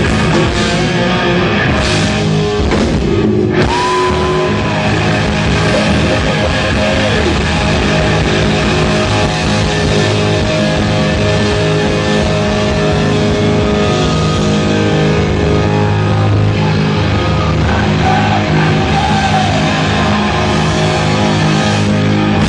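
Live heavy metal band playing loud, with distorted electric guitar over bass and drums; a guitar bends notes a few seconds in and again near the end.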